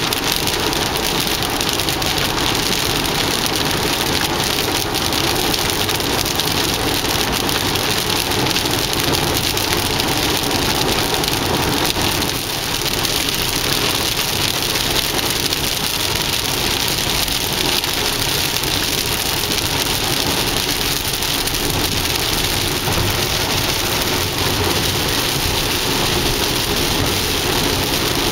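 Heavy rain falling on a car's roof and windshield, heard from inside the moving car, with the steady hiss of tyres on the wet highway beneath it.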